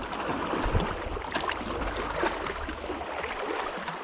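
Water lapping and sloshing with small, irregular splashes and ticks.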